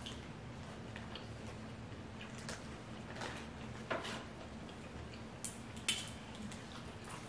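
Scattered small wet clicks and smacks of eating by hand: seafood boil being picked apart with the fingers and chewed, a few sharper clicks about four and six seconds in.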